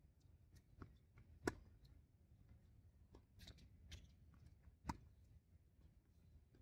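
Tennis rally: sharp pops of the ball off racket strings and bounces on the hard court, the two loudest about a second and a half in and just before five seconds in, with fainter pops between them. Otherwise quiet.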